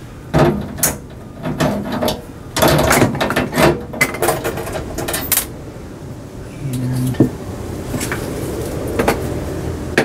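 Irregular clicks and knocks of a hand tool working against metal while a small screw is taken out, busiest over the first five seconds. A brief low hum comes about seven seconds in, followed by a few more scattered clicks.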